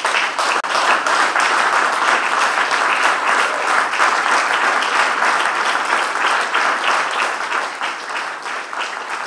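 Audience applauding: many hands clapping together in a dense, steady patter that eases slightly near the end.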